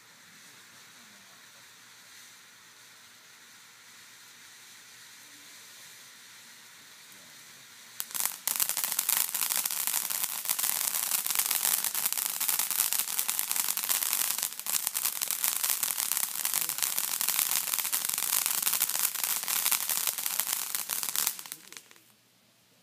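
Ground fountain firework hissing faintly, then about eight seconds in it turns suddenly loud with dense crackling that runs for some thirteen seconds and fades out near the end.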